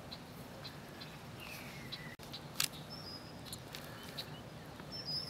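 Scattered light clicks and taps, with one sharp click about halfway through, over a low steady hum. A few short, high whistling chirps are heard.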